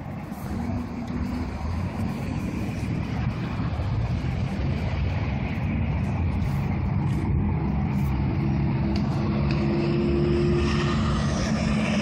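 Motor vehicle on a nearby road, its engine running with a low rumble that grows steadily louder.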